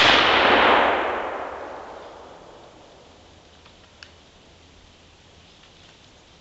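A single muzzleloader shot, its report rolling out through the woods and fading away over about two to three seconds.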